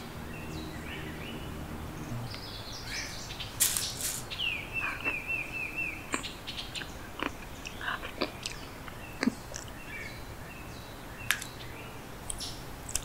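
Birds chirping: scattered short calls, with a quick run of about six falling notes around five seconds in, and a few sharp clicks.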